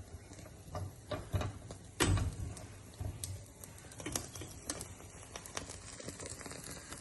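Green cardamom pods and cloves rattling and tapping in an old strainer as they are shaken over heat to char them, a stream of irregular light clicks with one louder knock about two seconds in.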